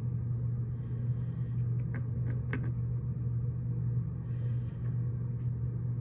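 A steady low hum, with a few faint clicks about two seconds in and two short soft hisses.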